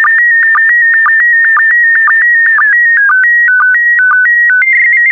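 PD120 slow-scan TV signal: the image's scan lines as a warbling electronic tone broken by a short low sync beep about twice a second. About three seconds in it changes to tones stepping between two pitches, then a fast high trill as the transmission ends.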